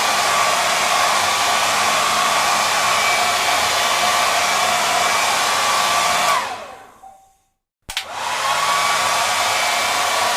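Hair dryer running with a steady whine over the rush of air. About six seconds in it is switched off and the motor whine falls away to silence; a click follows about a second and a half later and it starts again, the whine rising back to full speed.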